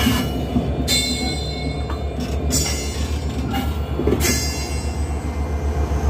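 Broad gauge diesel locomotive rolling slowly past at close range over old track. Its engine gives a steady low rumble, and about five sharp metallic clanks with screeching rings come from the wheels on the rails, roughly a second apart.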